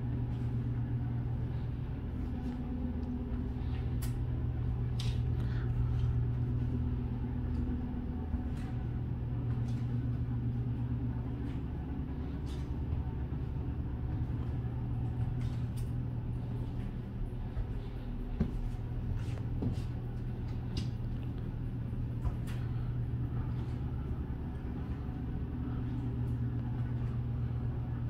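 Steady low hum with faint, irregular clicks of high heels stepping on a hard floor.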